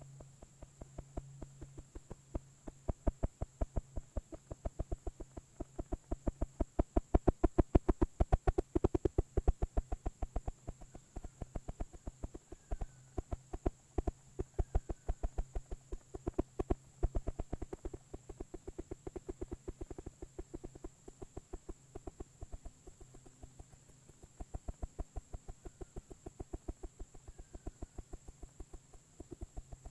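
Rapid, steady knocking or drumming, about five knocks a second, swelling louder a few seconds in and easing off somewhat afterwards. A faint steady hum and a thin high whine run underneath.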